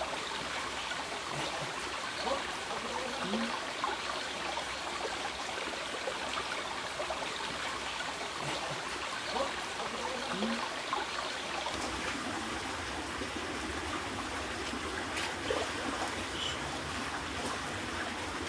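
Shallow water trickling and splashing steadily over the forest floor, a small stream running through leaf litter.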